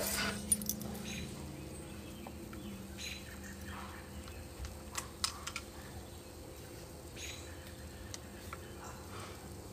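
Quiet outdoor background with a faint low hum in the first few seconds and scattered light clicks and ticks.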